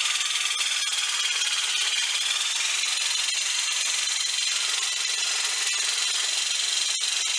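Electric jigsaw cutting sheet steel held across a slightly opened bench vise, running steadily with a high whine that rises a little about two seconds in as the steel is fed through the blade.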